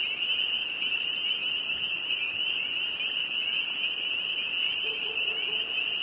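Dense chorus of spring peepers: many frogs' short, high rising peeps overlapping into a steady, shrill din.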